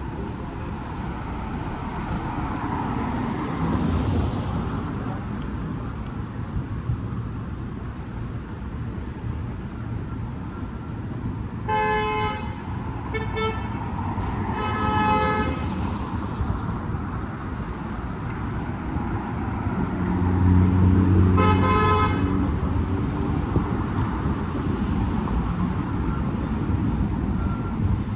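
City street traffic with a car horn honking: three honks in quick succession about halfway through, the last one longer, then one more short honk some seconds later. A heavier vehicle rumbles past around the time of the last honk.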